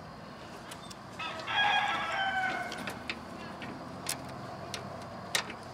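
A rooster crowing once, a long call starting about a second in and lasting nearly two seconds. A few light clicks follow.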